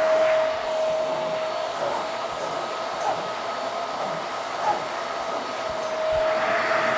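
Hoover Max Life Pro Pet Swivel upright vacuum running with its upholstery tool drawn over a fabric chair seat to pick up pet hair: a steady motor whine over a rush of suction air. The whine fades for a few seconds in the middle and comes back near the end, with a couple of faint clicks.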